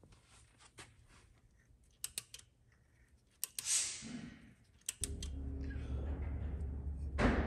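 Scattered small clicks and a brief scrape from hand tools and metal parts being worked by hand, a tap wrench and bolts on a milling machine's cast-iron saddle. About five seconds in a steady low hum starts, and a short loud thump comes near the end.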